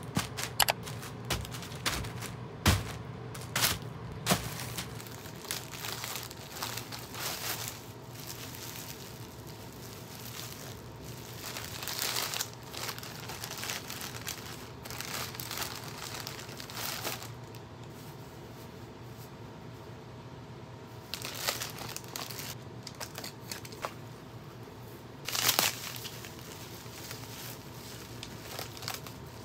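Packaging being handled, crinkling and rustling in irregular bursts with scattered sharp clicks and taps; the loudest rustles come about twelve seconds in and again near the end.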